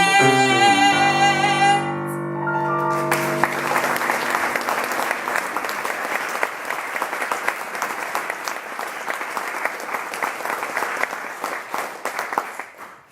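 The song's final sung note and its accompaniment ring out and fade over the first three seconds. Then the audience applauds, the clapping dying away near the end.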